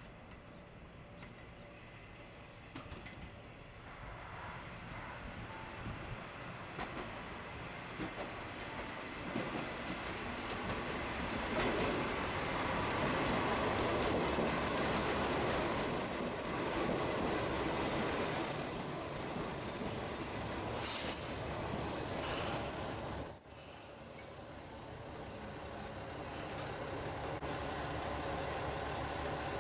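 Train running past: an even rolling rumble that builds to its loudest about halfway through, with a brief high wheel squeal a few seconds later.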